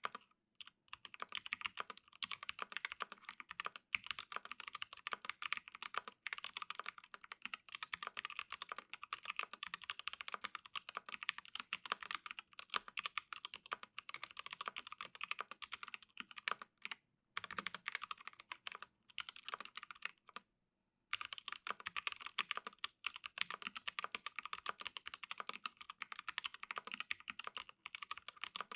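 Continuous fast typing on an acrylic Alice-layout mechanical keyboard with lubed T1 tactile switches, an acrylic half plate and PBT keycaps: a dense stream of crisp key clacks. It stops for a few brief pauses, the longest about two-thirds of the way through.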